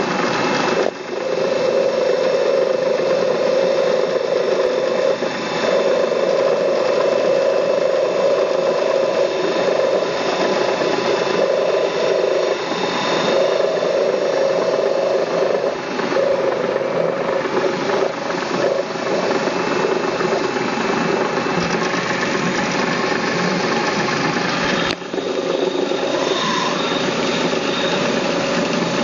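Grinding machine running steadily, its sound dipping briefly a few times.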